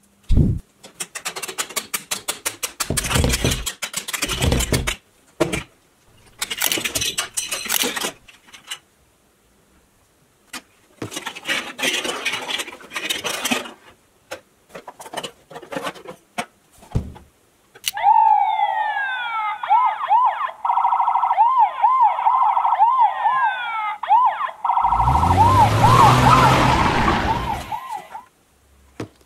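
Plastic building blocks clattering in quick bursts as the block egg is taken apart and toy boxes are pulled out. About halfway through, an electronic siren warbles rapidly for several seconds, followed by a loud rushing noise near the end.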